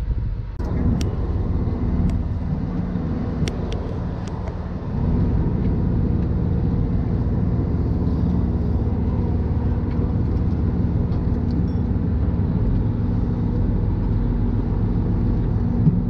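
A boat's engine running steadily under way: a low, even drone with a hum of rushing wind and water. It gets louder about five seconds in.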